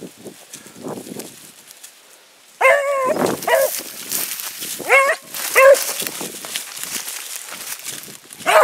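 Beagle giving tongue on a hare's track: five short bays starting about two and a half seconds in, the first the longest. Before them comes the light crackle of the hound pushing through dry brush and leaves.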